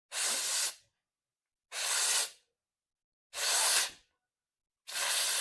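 Loud rushes of breath through an open mouth during plavan pranayama breathing practice: four separate breaths about a second and a half apart, the last one drawn out longer.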